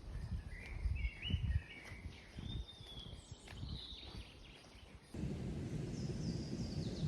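Wild birds chirping in woodland, with low gusty rumble of wind on the microphone. About five seconds in, a steady low wind noise sets in and fainter high-pitched bird calls continue.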